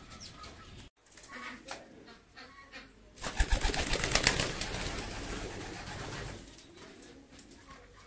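Domestic pigeons cooing in a loft. The sound cuts out briefly about a second in. From about three seconds in to about six seconds, a loud rustling with low thumps covers the cooing.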